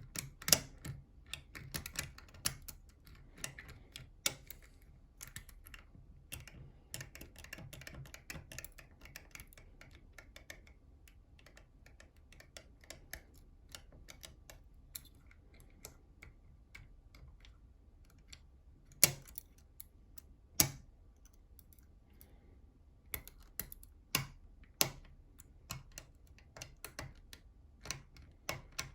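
Irregular small metallic clicks and taps of tools working inside a NATO Mersey 10-lever lock, busy at first, then sparse, with two louder clicks near the two-thirds mark.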